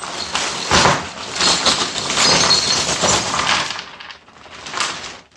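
A bagful of small scrap bits (vape parts, bits of wire, coins and pieces of brass) tipped out onto a workbench, clattering and clinking for about three and a half seconds before settling.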